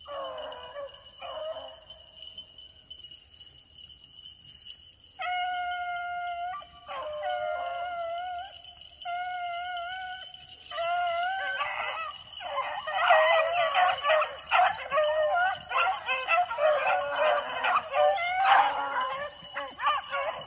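Beagles baying on a rabbit's scent trail: a single dog's long drawn-out howls at first, then from about twelve seconds in several dogs giving tongue together as the pack runs the track.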